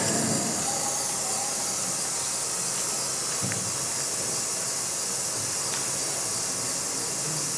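Steady high hiss of background noise, with faint room sounds and a soft low knock about three and a half seconds in.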